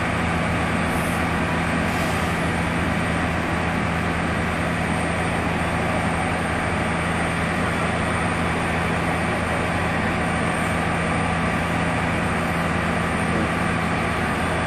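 Fire engine idling steadily: an unbroken low hum under a constant broad hiss.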